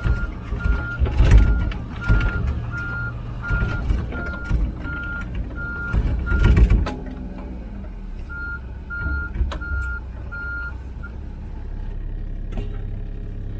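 Komatsu PC16 mini excavator's diesel engine running as it travels on its tracks, with its travel alarm beeping steadily about twice a second and rattling, clanking knocks. The beeping and clatter stop about seven seconds in, the beeping returns briefly, and then only the engine runs on.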